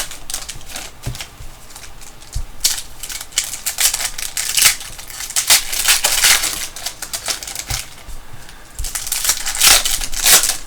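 Packs of trading cards being torn open and the cards handled: wrappers crinkling and cards rubbing and sliding against each other, in several bursts of rustling.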